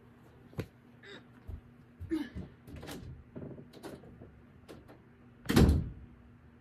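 Scattered knocks and scuffs of someone getting up and walking off, then a loud, heavy thump about five and a half seconds in: a door shutting.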